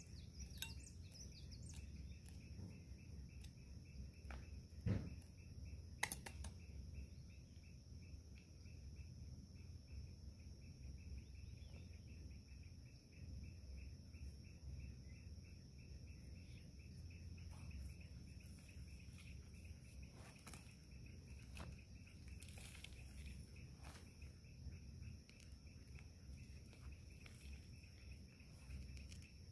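Faint, steady chirring of evening insects over a low background rumble, with a few soft knocks and rustles of hands working soil in a plant pot. The two sharpest knocks come about five and six seconds in.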